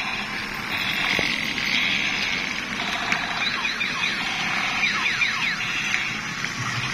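Electronic sound effects from a battery-powered transforming robot truck toy's small speaker: a steady alarm-like tone, with a run of quick falling zaps from about three seconds in.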